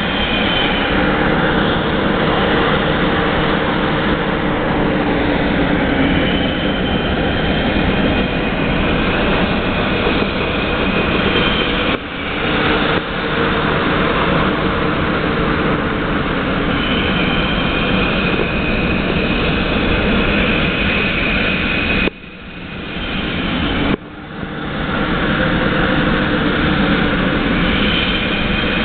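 Natural gas well flare burning off gas through two tall stacks: a loud, steady rushing roar with faint higher tones over it. The level drops suddenly twice, about twelve seconds in and for about two seconds around 22 seconds, then builds back.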